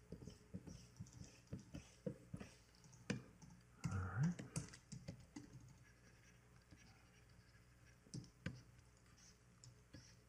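Faint computer keyboard clicks: scattered key taps, quick and frequent in the first few seconds, then only a few. A short hum of voice about four seconds in.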